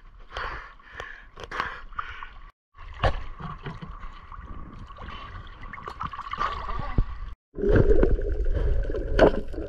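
Water gurgling and sloshing with many scattered sharp clicks and knocks, and a faint steady tone through the middle part. The sound cuts out abruptly twice, then comes back louder.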